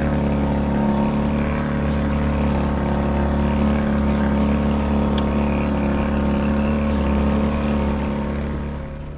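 A 25-horsepower outboard motor on an inflatable dinghy running steadily under load, towing a 20-ton sailboat lashed alongside. It fades somewhat near the end.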